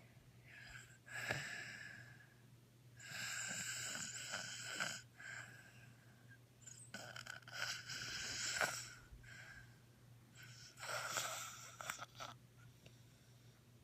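A person snoring: four long, noisy breaths, each a second or two long, spaced about three and a half seconds apart.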